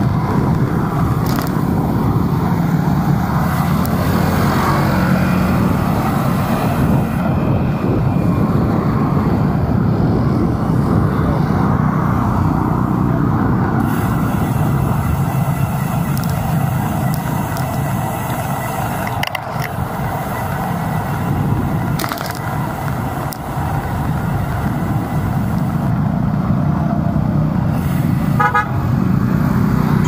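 Steady city traffic noise heard from a moving bike: a continuous low rumble with a noisy haze over it. Near the end a vehicle horn gives a brief toot.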